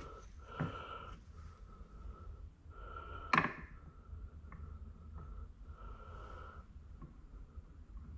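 Light clicks of a hex key and small metal parts being handled against a plastic battery-box part, the sharpest click about three and a half seconds in. Under them, breathing through the nose with a faint whistle, coming and going every second or so.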